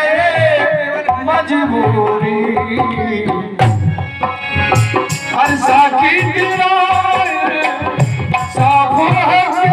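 A man singing a Hindi ghazal, his voice bending and held over long notes. He is accompanied by the steady chords of a harmonium and a hand drum playing a regular beat.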